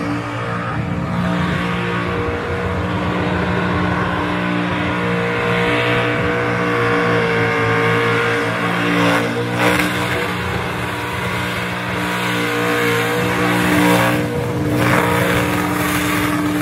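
Holden Commodore burnout car's engine held at high revs through a burnout, a steady sustained tone that wavers only slightly, over the hiss of spinning rear tyres. There are two brief sharper surges, one about halfway through and one near the end.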